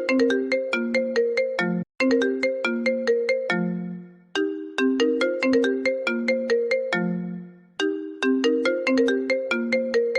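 An iPhone ringtone playing: a short melody of quick notes, each phrase falling to a low held note, then breaking off and starting again, about four times.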